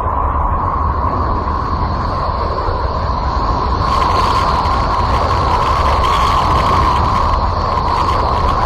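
A 'planet sound' from space: spacecraft radio or plasma-wave data turned into audio, heard as a steady rumbling, hissing drone with a ringing band in the middle of the range. It gets slightly louder and brighter about four seconds in.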